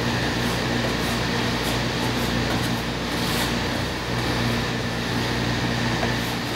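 Steady low machine hum running evenly throughout, with faint brief swishes of a bristle brush spreading gesso across a canvas in the first few seconds.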